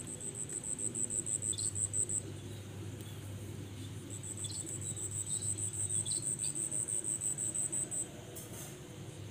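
An insect, cricket-like, trilling high and fast-pulsing: about two seconds, a pause, then again for about four seconds from about four seconds in.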